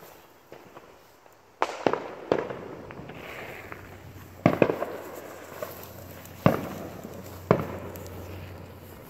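Fireworks going off: six sharp bangs at uneven intervals, each trailing off in an echo.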